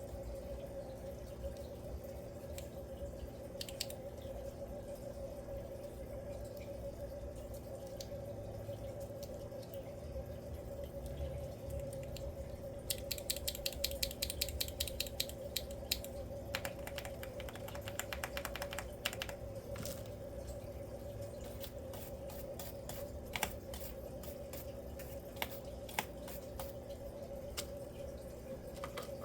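Keyboard keys clicking: a fast run of presses about ten a second in the middle, with scattered single clicks before and after. A steady hum runs underneath.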